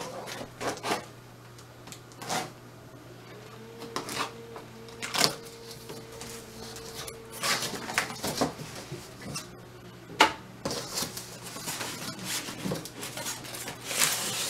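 Cardboard printer box being opened and unpacked by hand: irregular sharp knocks, scrapes and rustles of the cardboard flaps and styrofoam packing.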